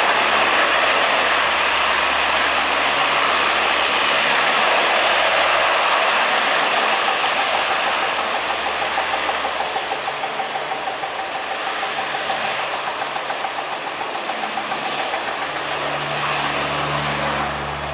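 Antonov An-12BK's four Ivchenko AI-20 turboprop engines running as the aircraft moves along the runway. The sound is a loud, even propeller-and-turbine noise that eases slightly after the first few seconds, with a rhythmic pulsing beat through the middle part.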